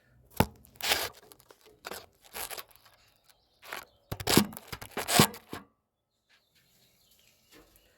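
Tools and parts being handled: a couple of sharp clicks among irregular bursts of rustling and scraping, stopping about six seconds in.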